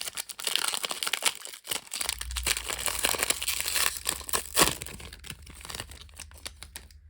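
Foil trading-card pack wrapper being torn open and crinkled, with rustling as the cards are pulled out.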